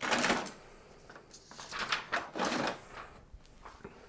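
Rustling and scraping handling noises in four or five short bursts, each well under a second, as a sheet of paper is fetched and handled.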